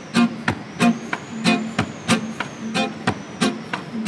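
Nylon-string acoustic guitar strummed in short, choppy chords with a steady rhythm of about three strokes a second, a reggae-style accompaniment.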